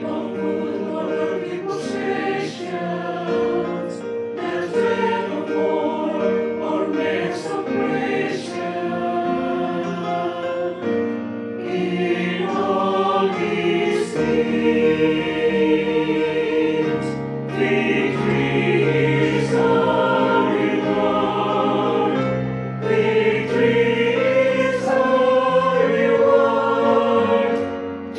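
Mixed choir of men and women singing a sacred song in harmony: a virtual choir, each singer recorded apart and the voices mixed together.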